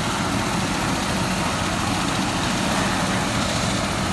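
Helicopter running on the ground with its main rotor turning: a steady engine and rotor noise with a fast low pulsing underneath.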